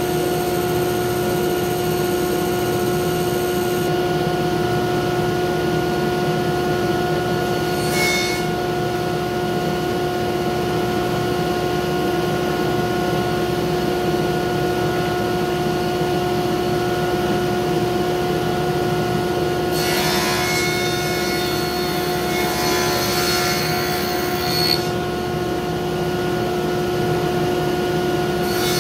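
Table saw running with a steady motor hum, cutting into pine strips briefly about eight seconds in and again for several seconds from about twenty seconds in.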